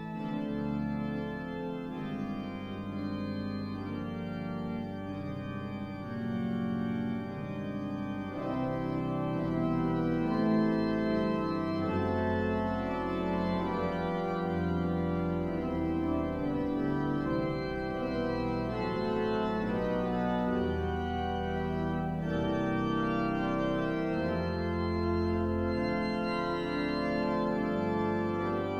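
Cathedral pipe organ playing a voluntary at the close of choral evensong: held chords over a deep pedal bass that moves every second or two, growing somewhat fuller about a third of the way through.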